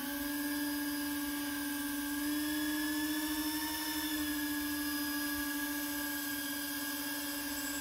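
Four 50 mm electric ducted fans of a radio-controlled Airbus A380 model whining steadily while taxiing, the pitch rising slightly a few seconds in and easing back.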